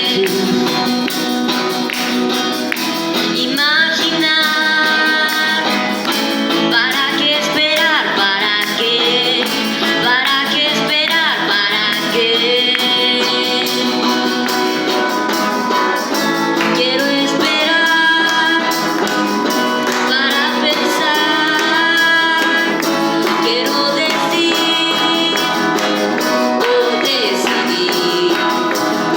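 A song played live: a voice singing a melody over strummed guitar accompaniment.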